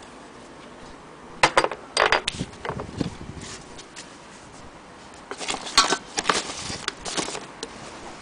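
Irregular metallic clinks and rattles in two bursts, the first about a second and a half in and the second from about five to seven seconds in.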